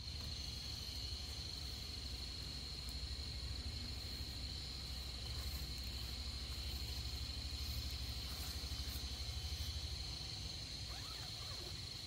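Insects chirring in one steady, unbroken high trill, with a low rumble underneath.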